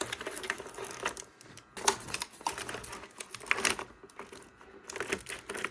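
Foil drink pouches being handled and set into a mini fridge: an irregular run of light clicks, taps and crinkles, with a sharper knock about two seconds in.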